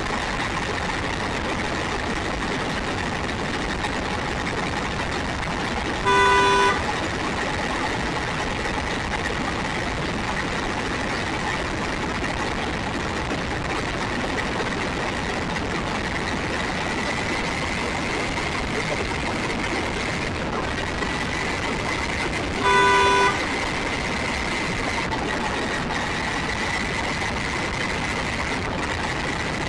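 Electric motor of an RC buggy whining steadily over a rushing noise as it drives along. A short, loud horn toot sounds about six seconds in and again about twenty-three seconds in.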